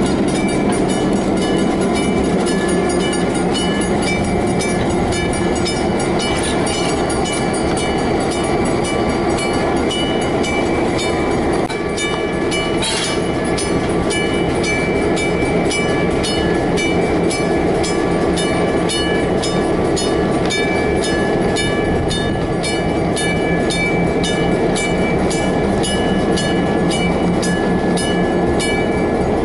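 Diesel locomotives of Chicago & North Western and Illinois Terminal running slowly past, engines running steadily, with a bell ringing at a steady beat of about two strikes a second.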